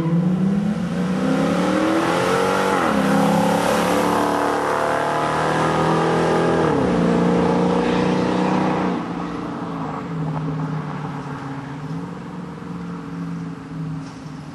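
Dodge Challenger R/T's 5.7-litre HEMI V8 through an aftermarket exhaust, accelerating hard. The engine note climbs, drops at an upshift about three seconds in, climbs again and drops at a second upshift near seven seconds, then climbs once more. At about nine seconds it eases off to a lower, quieter steady run.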